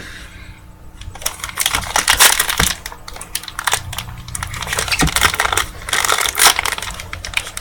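A foil trading-card pack wrapper crinkling and tearing as it is handled and pulled open, in irregular dense crackles and clicks starting about a second in.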